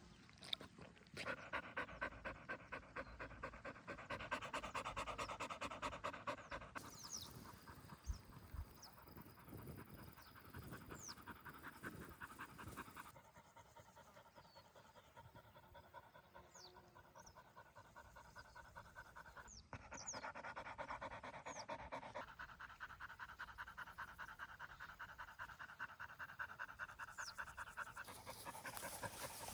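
Dog panting in quick, rhythmic breaths, with small birds chirping briefly now and then.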